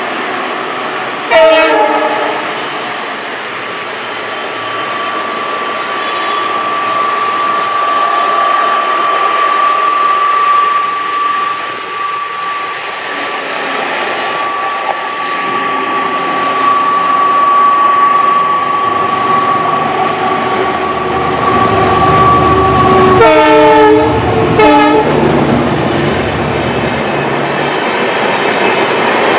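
WDG4 diesel-electric locomotive with its 16-cylinder two-stroke EMD engine approaching at the head of a passenger train. There is a short horn blast about a second in, and a steady whine through the middle. The engine grows louder from about halfway, two horn blasts come near the end, and the wheels clack as the train passes.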